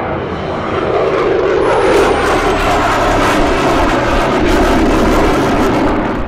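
Jet aircraft flying past: a loud, steady engine rush, with a high whine that falls in pitch about two seconds in.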